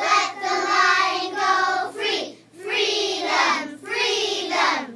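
A group of children's voices chanting together in a sing-song way, in phrases of about a second each with short breaks between them.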